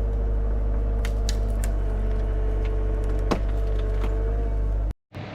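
Hyundai HX85A excavator's diesel engine running steadily with a steady hydraulic whine, while the poplar tree it is pushing cracks and splinters, with a few sharp cracks around a second in and a louder one about three seconds in. The sound cuts off abruptly near the end.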